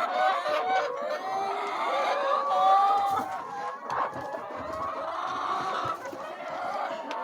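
A flock of chickens clucking together, many overlapping calls running on without a break, with a single sharp knock about four seconds in.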